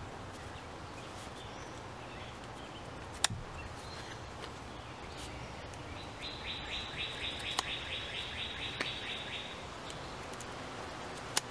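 Outdoor background with a bird's rapid run of repeated chirps, about four a second, lasting some three seconds past the middle. A few single sharp clicks come as a knife's rescue hook is worked through a thick rope.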